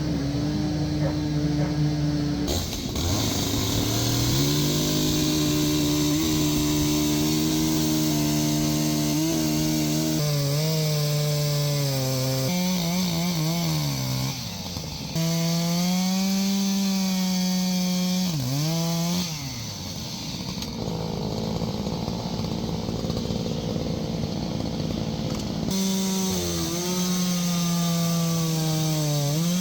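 Two-stroke chainsaws running at high revs while carving wood, the engine pitch sagging and picking back up as the saw is worked. The sound changes abruptly several times.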